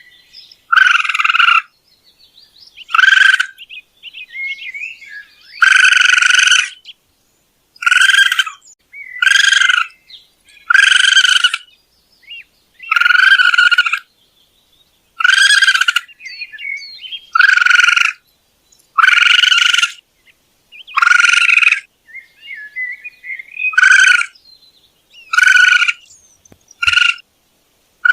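Raccoon calling over and over: about fifteen short, high cries, one every second or two, with fainter chirps between them.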